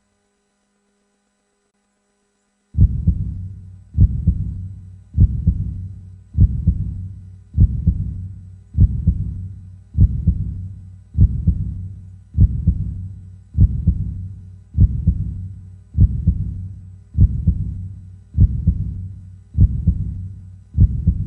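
Heartbeat sound effect: silent for about the first three seconds, then a slow, steady heartbeat of low double thumps (lub-dub), about one beat every 1.2 seconds, each fading out before the next.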